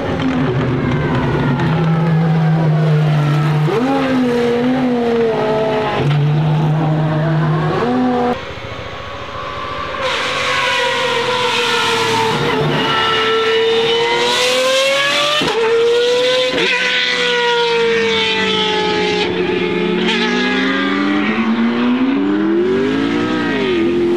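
Pagani Huayra R's V12 with unrestricted exhaust, loud, held at steady revs and then accelerating hard, its pitch climbing and dropping sharply again and again through the gear changes.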